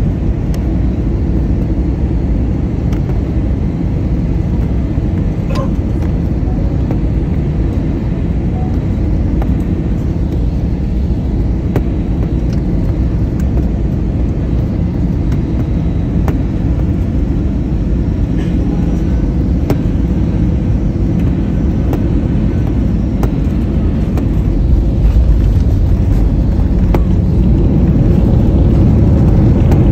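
Airliner cabin noise heard from a window seat: a steady low rumble of jet engines and rushing air, getting louder in the last few seconds as the plane comes down onto the runway.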